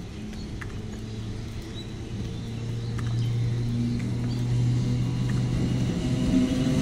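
Indian Railways MEMU electric multiple unit approaching: a steady low electric hum over wheel-on-rail rumble, growing louder as the train nears.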